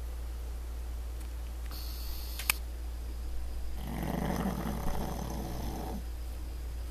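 A pug snoring in its sleep: one rough snore lasting about two seconds, a little past the middle. A second or so before it there is a short hiss that ends in a sharp click.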